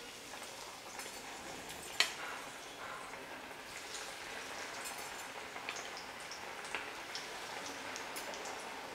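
Masala-coated chicken pieces deep-frying in medium-hot vegetable oil: a steady sizzle with small crackling pops as pieces are lowered in one by one with tongs. A single sharp click about two seconds in.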